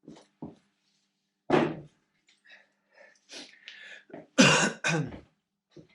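A man coughing and clearing his throat: once about a second and a half in, then twice in quick succession near the end, with faint clicks of parts being handled in between.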